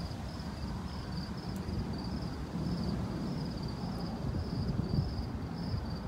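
A cricket chirping steadily, about two to three high chirps a second, over a low steady rumble from the thunderstorm.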